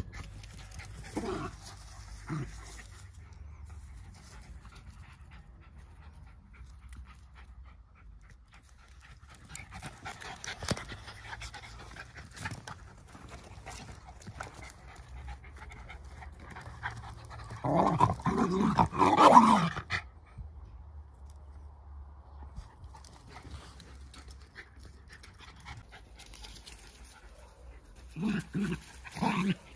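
Two Jack Russell terriers play-wrestling, panting and giving short vocal bursts. A loud flurry comes about two-thirds of the way through, with a few brief bursts near the start and the end.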